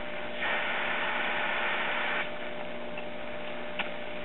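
Static hiss and a steady hum from a Silvertone tube radio's speaker, tuned to a weak, distant AM station on its built-in loop antenna with no outside antenna; the hiss swells for about two seconds, and there is one brief tick near the end.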